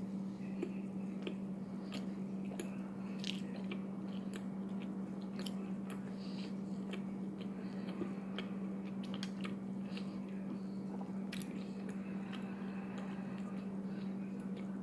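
A person chewing food close to the microphone, with many small irregular mouth clicks and smacks, over a steady low electrical hum.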